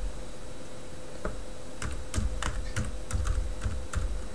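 Typing on a computer keyboard to enter a Wi-Fi network name at a terminal prompt: irregular keystrokes, a few a second, starting about a second in.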